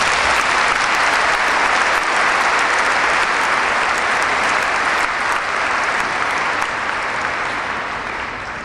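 Large audience applauding steadily, the clapping dying down near the end.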